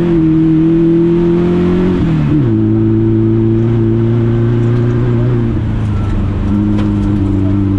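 Rally VW Beetle's engine running hard at high revs, heard from inside the cabin. Its pitch drops sharply about two seconds in at a gear change, then holds steady.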